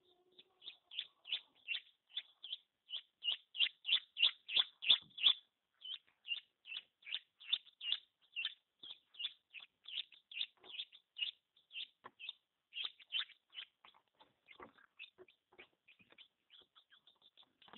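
Newly hatched chicken chick peeping repeatedly: short, high-pitched peeps at about three a second, loudest a few seconds in and growing fainter and more scattered near the end.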